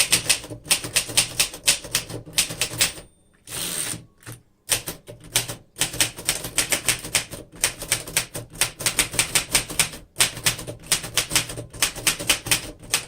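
1938 Remington Model 5 portable typewriter being typed on in quick runs of keystrokes, the typebars striking without sticking. About three seconds in, the typing breaks off for a short sliding sweep, the carriage being returned, and then picks up again.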